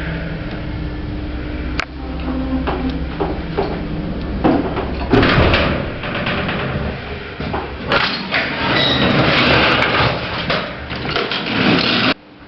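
Old gated lift: its steady motor hum stops with a sharp click about two seconds in, then the metal gates slide and clatter in long rattling stretches, cut off suddenly near the end.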